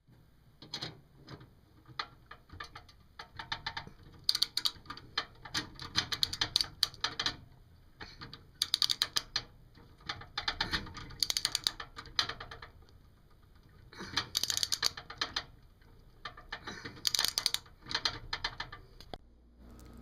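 Rapid metallic clicking in short bursts every two to three seconds from a hand tool working the bolt that holds a gas furnace's flame sensor as the sensor is taken out.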